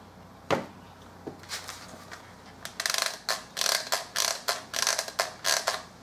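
Bench work with a hot glue gun and small MDF pieces: a single knock about half a second in, then a run of short, rough clicks and scrapes over the last few seconds.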